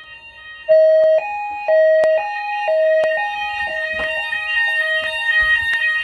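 Fire alarm evacuation tone sounding after a manual call point test activation. About a second in, a two-tone alarm starts, switching between a lower and a higher pitch every half second over a steady higher tone.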